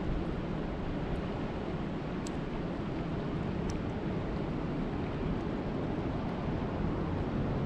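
Steady rain, an even hiss with a few sharp drop ticks standing out.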